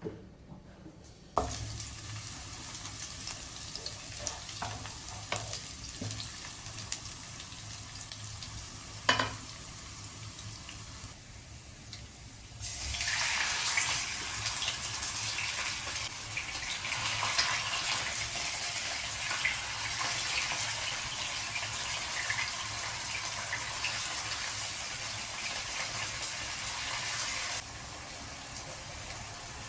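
Kitchen cooking sounds: a few sharp knocks of utensils, then a steady hiss lasting about fifteen seconds that stops suddenly near the end.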